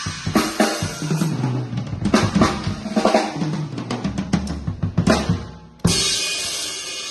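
A Pearl drum kit played in fast fills of snare, tom and bass drum hits, then a cymbal crash about six seconds in that is left ringing.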